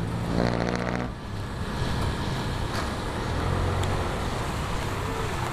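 Motorcycle riding along a wet road: a steady engine tone for about the first second, then a steady hiss of tyres and wind over a low engine hum.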